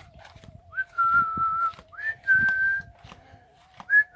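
A person whistling to call a dog: three short whistles, each swooping up into a held note, one to two seconds apart, over a faint steady hum.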